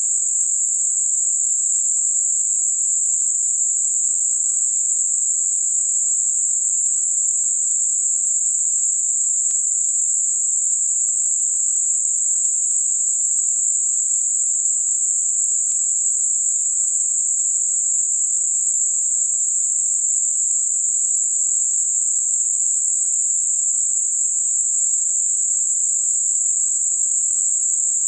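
Steady, unchanging high-pitched hiss: synthetic 7.5 kHz Gaussian narrowband noise, a tinnitus-masking sound.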